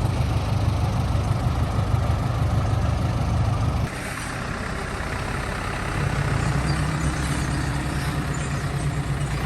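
Diesel engine of heavy earth-moving machinery running: a deep rumble that drops abruptly and changes character about four seconds in, then settles into a steadier low hum.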